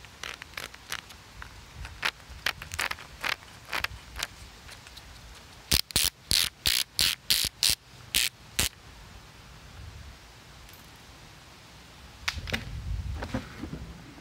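Plastic knobs and gear wheels on a Power Wheels toy jeep's dashboard panel clicking as they are turned by hand: scattered light clicks, then a quick run of about nine louder ratcheting clicks around the middle. A low rumble of the plastic being handled comes near the end.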